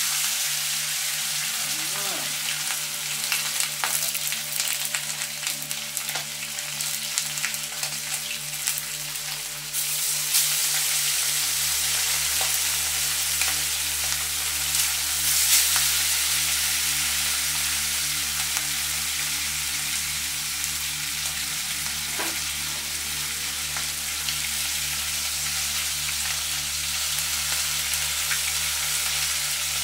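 Whole fish frying in hot oil in a frying pan: a steady sizzle with scattered pops and crackles, growing louder about ten seconds in.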